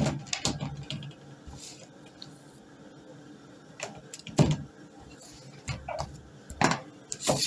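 A few separate knocks and thumps of kitchen handling while bread dough is being shaped and set down, the loudest about four and a half seconds in.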